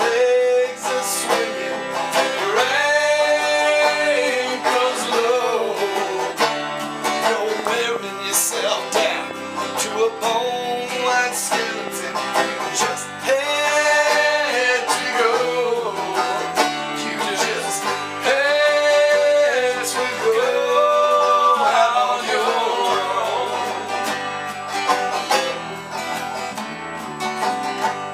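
Country/bluegrass-style music: plucked banjo and guitar with a singing voice carrying the melody.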